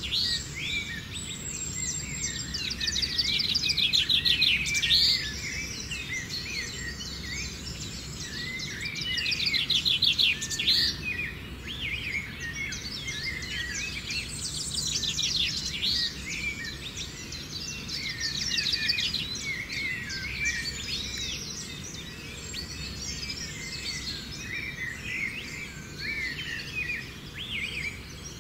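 Wild birds chirping and calling densely over a steady low background noise, with fast rattling trills that come in several times. It is loudest at about four seconds in and again around ten seconds.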